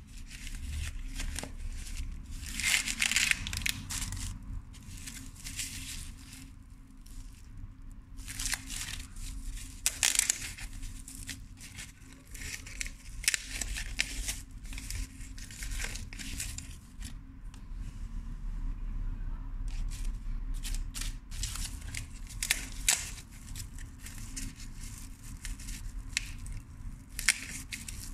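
Packaging being unwrapped by hand: paper and plastic rustling and crinkling in irregular bursts, with scattered sharp clicks and taps.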